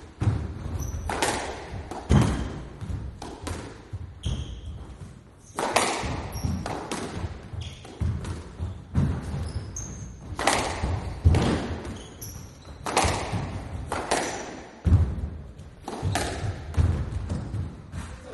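Squash rally: the ball's sharp, irregular hits off racket, walls and floor, echoing in the court, with short high squeaks between hits.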